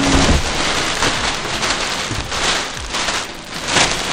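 Plastic bubble wrap rustling and crinkling as it is pulled and unwrapped by hand, in uneven swishes, with louder ones about two and a half seconds in and near the end.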